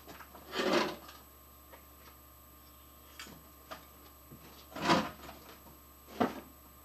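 Three short rustling, scraping handling noises, about a second in, near five seconds and again a second later, with a few faint clicks between.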